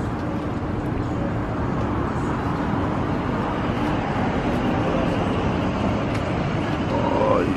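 Steady rumble of road traffic and running engines. A short gliding squeal or call comes near the end.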